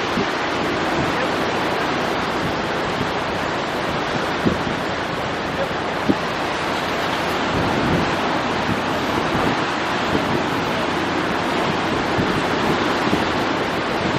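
Surf breaking on a rocky shore, a steady wash of noise, with wind on the microphone. Two brief knocks come about four and six seconds in.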